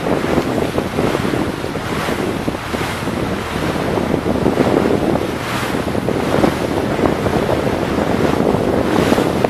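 Wind buffeting the microphone over the steady rush of water past a moving boat, with stronger gusts about every three seconds.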